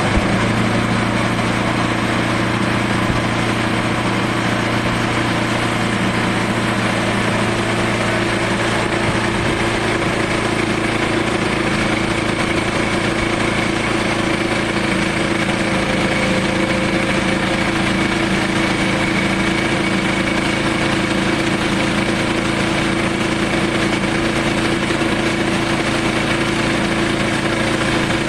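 Sawmill engine running at a steady speed, holding one even pitch throughout, as the mill works through a southern rata log.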